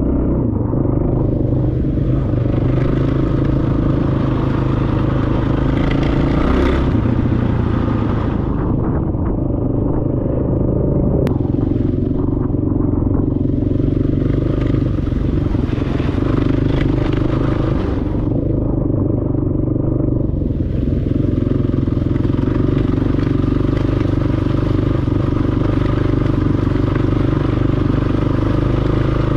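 Dirt bike engine running steadily while riding on a muddy road. A rushing hiss of wind and wet road noise swells and fades in three long stretches, and a single sharp click comes about eleven seconds in.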